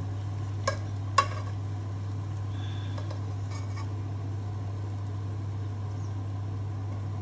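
A wire spider strainer and a silicone spoon working against a pot of hot oil while fried onions are lifted out and pressed to drain. Two sharp clinks come about a second in, over faint oil sizzle and a steady low hum.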